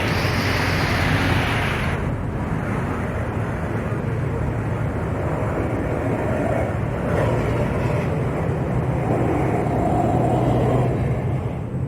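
Tour bus engines running, with road noise as the convoy of buses passes, and a steady low engine hum underneath. A hiss stands out over the rumble for the first two seconds.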